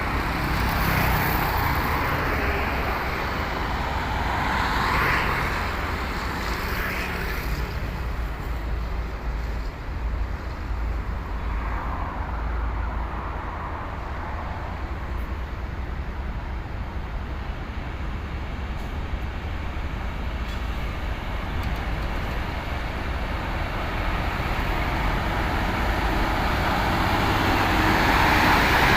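Road traffic passing on a climbing road: a steady low engine rumble with tyre and engine noise that swells several times as vehicles go by, building louder near the end.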